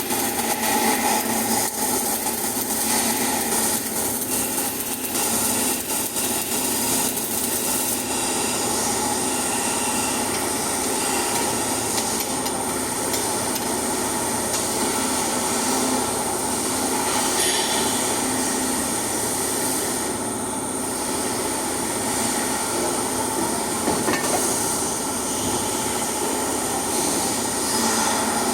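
Flux-cored arc welding: the arc burning steadily as a continuous dense crackling hiss, with a thin high whine.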